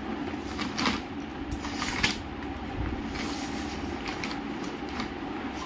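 Plastic and paper shopping bags rustling and crinkling as clothes are handled in and out of them, in several short crinkles with the loudest about two seconds in, over a steady low hum.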